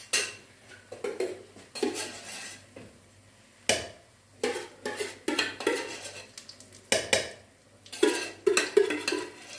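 Metal spoon and containers clinking and knocking against a steel wok in a dozen or so irregular knocks, as ghee is spooned into semolina halwa.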